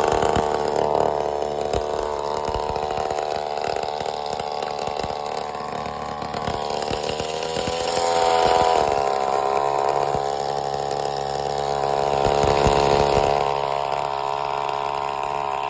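Small gasoline engine of a Razor mini bike gas conversion running, its pitch and loudness rising as it is revved about halfway through and again near the end.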